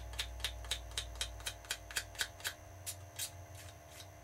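X-Acto knife blade scratching and nicking a smooth surface in quick short strokes, about four a second, slowing and stopping near the end: roughening it so the epoxy has somewhere to bite.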